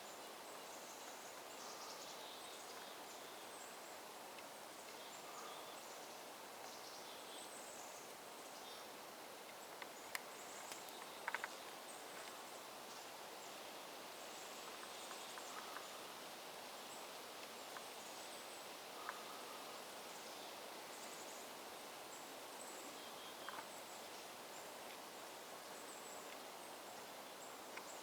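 Quiet outdoor ambience in the woods: a faint steady hiss with scattered faint high chirps and a few light clicks about a third of the way in.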